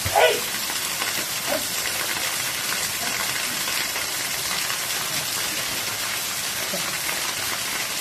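Steady hiss of a small waterfall pouring and splashing onto two people standing beneath it and onto the rock. A short voice call sounds right at the start.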